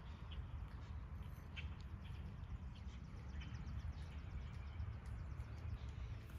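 Birds chirping now and then, with a fast high trill in the middle, over a steady low rumble of wind on the microphone.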